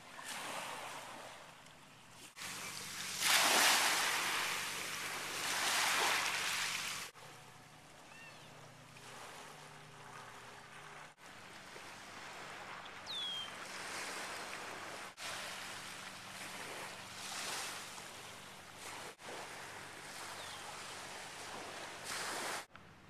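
Small waves washing onto a shell-strewn beach in slow swells, with wind on the microphone; the sound changes abruptly every few seconds. A short falling chirp is heard about a third of the way through.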